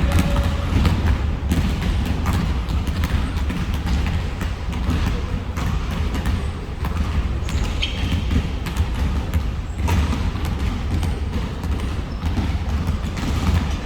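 Basketballs bouncing on a gym floor, a scatter of short thumps, over a steady low rumble of the hall.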